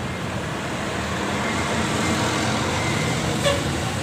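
Large tour coach bus driving past on a road: engine and tyre noise, growing slowly louder.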